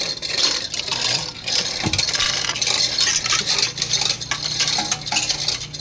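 Metal hand tools and loose bolts clinking and scraping as an engine is worked on, in quick irregular clicks. A low steady hum comes in about two and a half seconds in.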